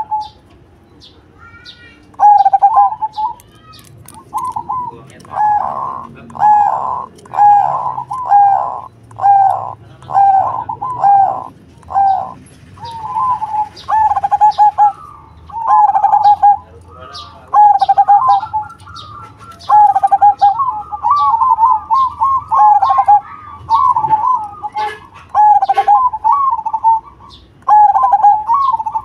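Zebra dove (perkutut) singing: short, rolling coos about one a second, then, after about twelve seconds, faster coos run together into longer phrases. Faint high chirps from a small bird sound throughout.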